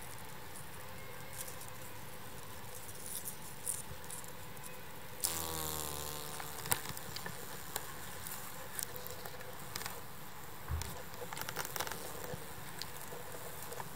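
An iridescent beetle's wings buzzing as it takes off, about five seconds in, lasting about a second. Scattered crackles and rustles of dry leaves follow in the second half.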